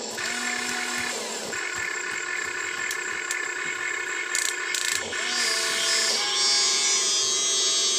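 Electric motors of a Huina 1592 RC excavator whining in short spells as the arm moves, each whine rising, holding and dropping away; this happens once near the start and twice in the second half, over background music.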